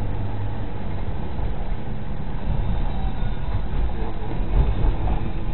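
A motor vehicle driving along a rough, uneven road: steady low engine and road rumble, with two louder thuds from bumps near the end.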